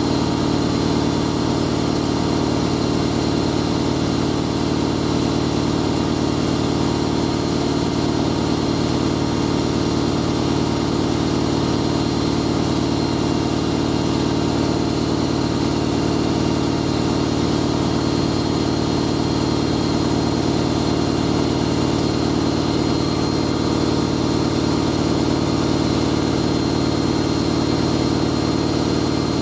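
Hoover A3060 Electronic 1100 washing machine spinning at its full 1100 rpm: a steady, unchanging hum of motor and drum, running smoothly.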